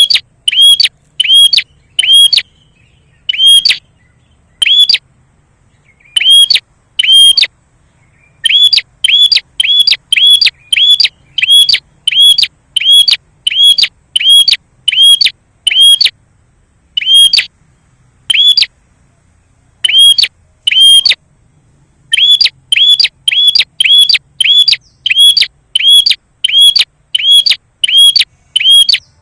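Prenjak (prinia) lure call: a loud, sharp chirp repeated about twice a second in runs broken by short pauses, played to provoke a wild prenjak into answering.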